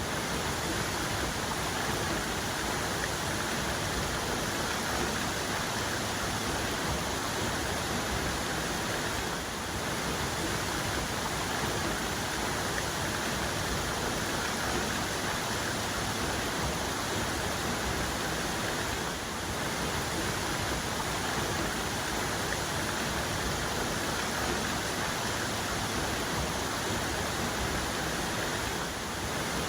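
Main cascade of a waterfall: a steady, full rush of falling water, even throughout with only slight brief dips about every ten seconds.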